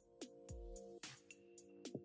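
Background electronic music, fairly quiet: held synth chords over a deep kick drum about twice a second, with crisp clicking percussion on top.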